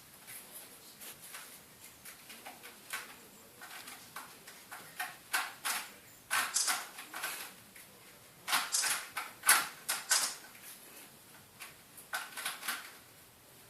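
A kitten scrambling on a cat scratching tree and batting at a toy mouse: irregular bursts of claws scratching and rustling, with small taps and clicks, busiest and loudest about nine to ten seconds in.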